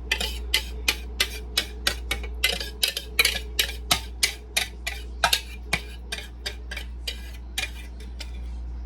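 A utensil repeatedly scraping and tapping against a mixing bowl while banana bread batter is emptied into a baking pan, about three short strokes a second, over a steady low hum.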